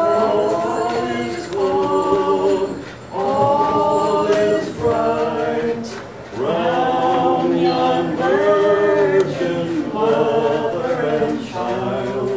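A small group of carolers singing a cappella, held sung phrases with short pauses between them.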